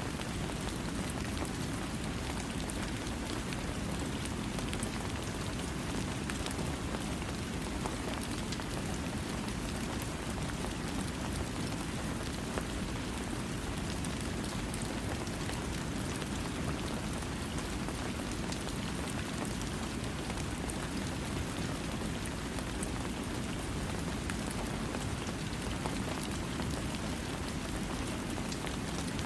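Steady rain falling, an even hiss with scattered fine drop ticks and no thunder.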